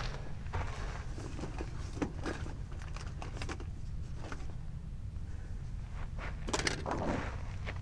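Scattered soft crunching footsteps and small knocks of gear being handled, with a steady low wind rumble on the microphone.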